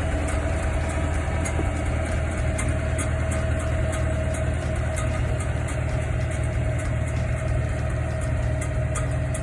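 A vehicle engine running steadily at a constant pace, a low rumble with a steady whine over it.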